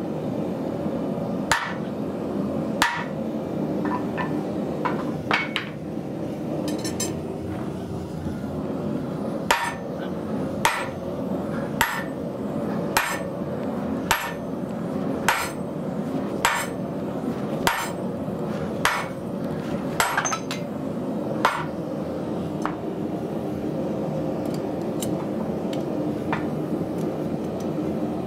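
Sledgehammer blows ringing on a steel square drift being driven through red-hot heavy-wall tubing to punch a square hole. A few scattered strikes at first, then a steady run of about a dozen blows, roughly one a second, over a constant hum.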